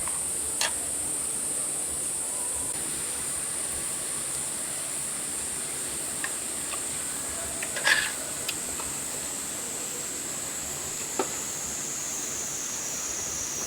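Steady high-pitched drone of summer insects, dipping slightly in pitch near the end, with a few light clinks of tableware, the loudest about eight seconds in.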